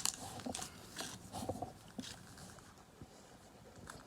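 Faint rustling and light ticks of a torn-open foil booster pack and its cards being handled, dying away after about two seconds.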